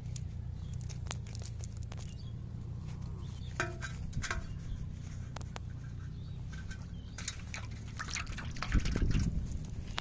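Fish and a wet cast net being handled by hand on grass: scattered clicks and rustling, two sharper clicks a little before the middle, and a louder thump near the end, over a steady low rumble.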